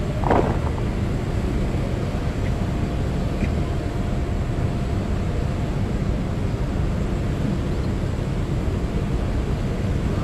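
Steady low rumble and hiss with a faint constant whine from a parked passenger jet running on the apron.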